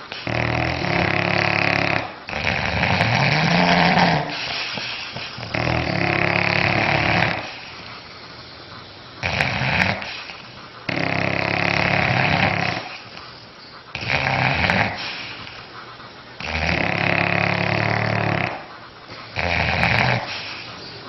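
A sleeping pet snoring loudly, one snore every two to three seconds, with longer and shorter snores in turn.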